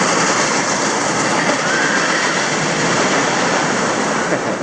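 Loud, steady rush of running and splashing water at a water park, an even hiss with no rhythm.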